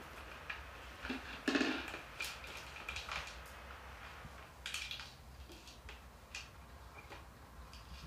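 Hard plastic pet toys knocking and clicking on a tile floor as a parrot plays with them: scattered light clicks, with a louder short rattle about a second and a half in and another near five seconds in.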